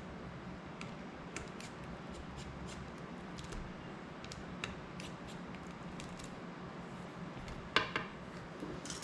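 Small clicks and scrapes of a precision screwdriver working screws on a Cinelog 35 FPV drone's plastic prop guards, with a louder clatter of parts near the end. A low steady hum runs underneath.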